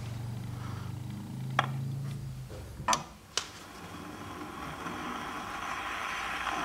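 Needle of an Empire acoustic phonograph's reproducer being set onto a spinning 78 rpm shellac record. A low hum for the first two seconds or so, then a few sharp clicks as the tonearm and needle are handled and put down. After that, hiss from the record's lead-in groove building and holding through the horn before the music starts.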